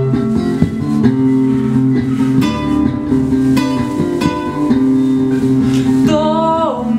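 Guitar played live, plucked notes and chords ringing over held low notes. Near the end, one note slides down in pitch.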